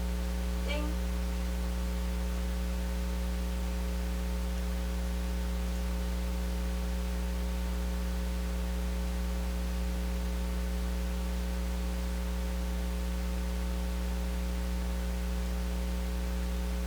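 Steady electrical mains hum with a buzz of overtones over faint hiss, unchanging in pitch and level.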